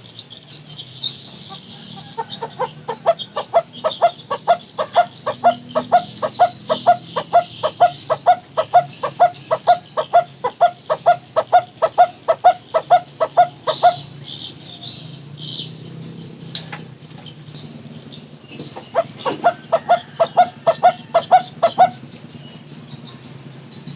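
Barbet (burung takur) calling a long series of hollow, evenly repeated notes, about four a second, for about twelve seconds. A second, shorter series follows near the end. Insects buzz steadily underneath.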